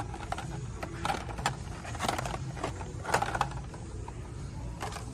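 Blister-packed die-cast toy cars being handled on store pegboard hooks: scattered plastic clicks and crinkles, a few seconds apart, over a steady low hum.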